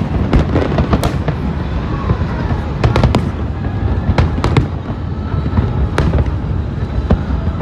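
Fireworks display: a continuous low rumble of bursts with many sharp cracks and bangs scattered through it.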